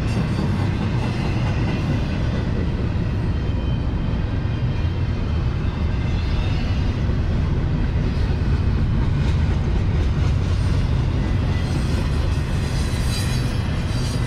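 Double-stack intermodal well cars of a CSX freight train rolling past, a steady low rumble of steel wheels on the rails.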